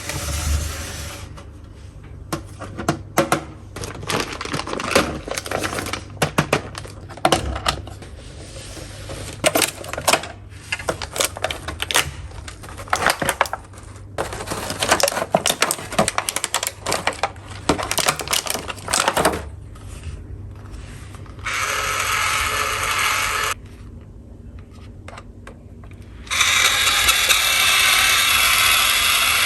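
Small plastic toy tools clicking and knocking as they are handled, many quick sharp taps over the first two-thirds. Then a toy electric drill's small motor runs steadily for about two seconds, stops, and starts again near the end.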